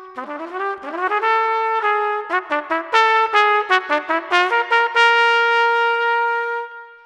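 Solo trumpet playing a fanfare: upward slurred notes at first, then a string of short notes, ending on a long held note that fades out near the end.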